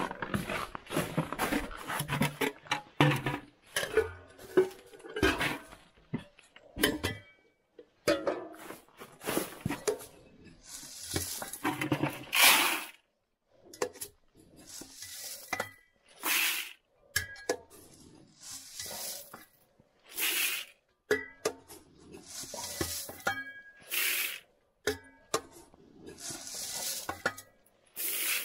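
Dry shelled corn being scooped with a can and poured into a plastic bucket: a rattling rush of kernels about every two to three seconds, with knocks and scrapes of the can between pours.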